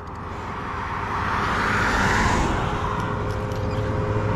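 A vehicle passes on the road: its engine and tyre noise swells to a peak about two seconds in and then eases off, over a steady low hum.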